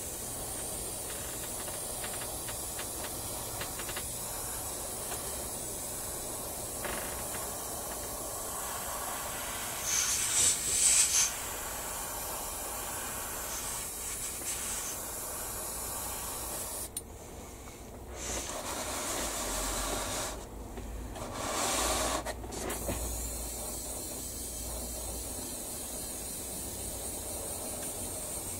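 Airbrush hissing steadily as it sprays paint. A louder, sharper blast of air comes about a third of the way in, and past the middle the air cuts out briefly twice.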